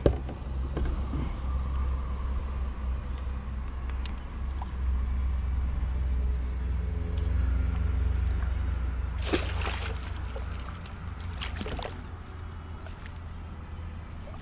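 A steady low rumble, then water splashing twice in short bursts about two thirds of the way through as a hooked musky thrashes at the surface.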